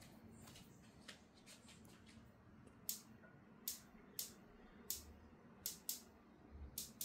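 Light, sharp clicks and taps at irregular intervals, sparse at first and louder from about three seconds in, over a faint steady hum.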